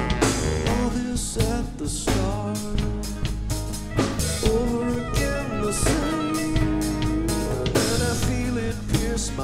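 Live band playing a rock song with drum kit, guitars and bass, and a male lead singer singing over it.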